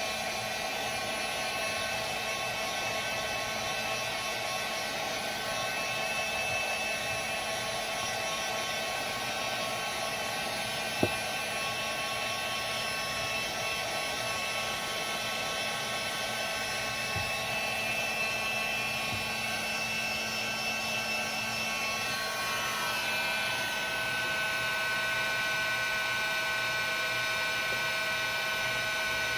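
Electric heat gun blowing steadily, a whooshing rush with a fan whine, used to soften the paraffin wax; the whine changes pitch about three-quarters of the way through. One sharp click near the middle.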